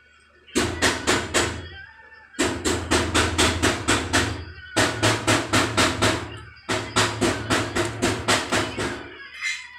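Dog crunching dry kibble, chewing in quick even crunches about four to five a second, in four runs with short pauses between.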